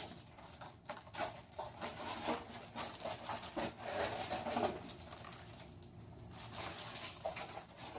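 Packaging being handled: irregular rustling, crinkling and light clicks of plastic wrap and packing material as PC case parts are taken out of their box.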